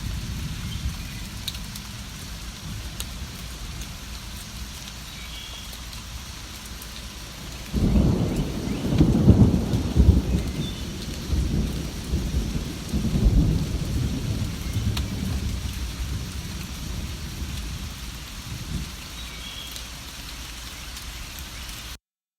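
Steady rain falling, with a low thunder rumble breaking in about eight seconds in, rolling and swelling for several seconds before fading. A few faint bird chirps sound over the rain, and the sound cuts off abruptly near the end.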